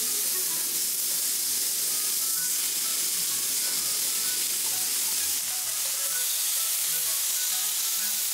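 Meat sizzling steadily on a hot yakiniku grill, over light background music of short scattered notes.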